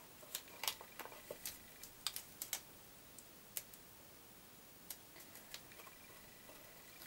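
Light ticks and taps of a paper piercer's tip and fingertips on cardstock as small punched paper flowers are pressed onto glue dots on a card box. There is a quick run of ticks in the first couple of seconds, then scattered single ones.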